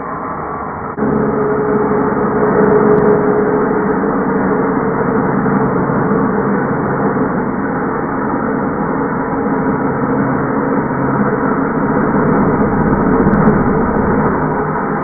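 Milwaukee M18 cordless 6½-inch circular saw running under load, its blade cutting through a 2x12 board with a steady whine. It gets louder about a second in.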